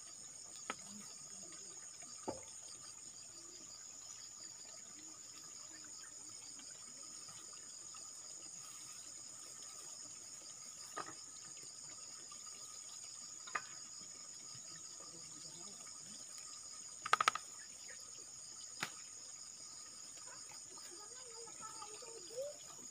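Steady, high-pitched insect chorus, a continuous trill like crickets, with a few short sharp clicks or taps scattered through it, the loudest a quick cluster about seventeen seconds in.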